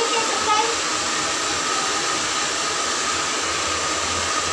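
Handheld hair dryer blowing on wet hair: a steady rush of air with a faint constant whine.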